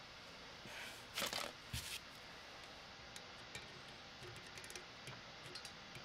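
Faint handling sounds of a nut driver working a stainless steel hose clamp on a rubber toilet-to-pump coupling: a short rustling scrape about a second in, then a scatter of light ticks.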